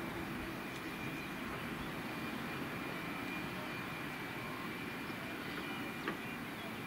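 Boeing 757 airliner's jet engines running steadily at low power as it rolls out along the runway after landing, a steady rumble with a thin high whine over it.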